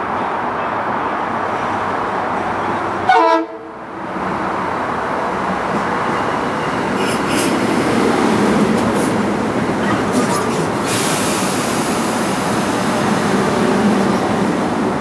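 Electric commuter train running through the station with a steady rumble, and a short horn toot about three seconds in that cuts off abruptly. After a brief drop the train noise builds again, with a few high-pitched squeals between about seven and eleven seconds in.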